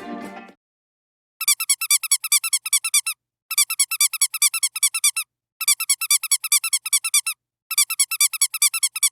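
Dog squeaky toy squeezed rapidly, about seven high squeaks a second, in four runs of nearly two seconds each with short pauses between.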